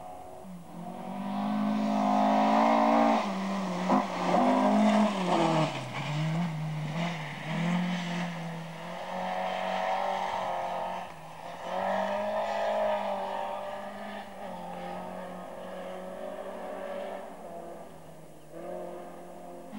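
Rally car at full throttle on a gravel special stage, its engine rising and falling in pitch with gear changes and lifts as it comes past, then fading away.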